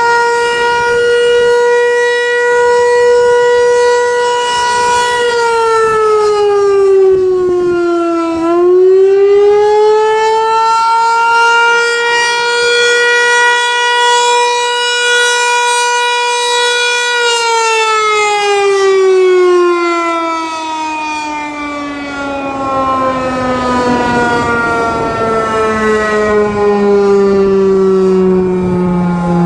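Federal Signal 508-128 outdoor warning siren sounding its attack (rising-and-falling) signal: a single held tone dips in pitch and climbs back once, holds again, then a little past halfway the signal ends and the siren winds down, its pitch falling slowly.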